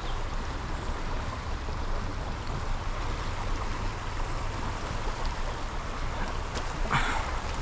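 Shallow river water running steadily over rocks, an even rushing, with one brief, louder sound near the end.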